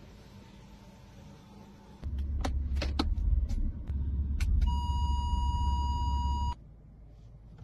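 A loud low rumble starts suddenly about two seconds in, with a handful of sharp clicks over it. For the last two seconds of the rumble a steady, high electronic beep sounds, and both cut off abruptly together.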